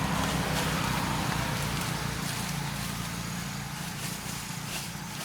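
A motor vehicle's engine running as it passes, a steady low hum that is loudest at the start and fades away over the last seconds.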